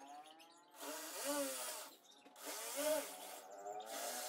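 Cordless drill boring holes in wooden boards in three short runs. Each time the motor's pitch rises as the trigger is squeezed and falls as it is let off, over a hiss of the bit cutting wood.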